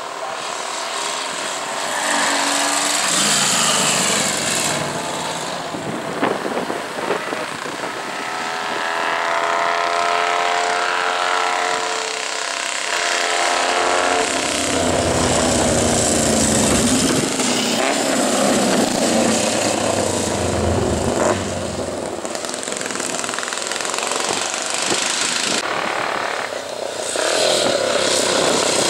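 Vintage racing motorcycles running at speed as they approach and pass along the course, the engine note swelling and changing pitch as they go by.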